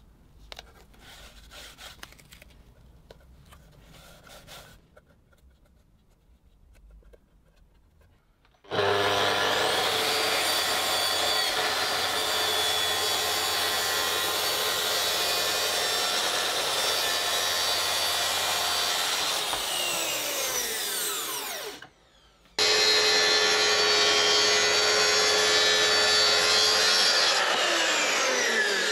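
Quiet rustling as gaffer tape is smoothed over a plunge saw's blade change hole. About nine seconds in, a Makita SP6000 plunge track saw starts abruptly and runs steadily cutting through plywood along its guide rail, then winds down with a falling whine. After a sudden break, a second stretch of cutting also ends in a falling wind-down.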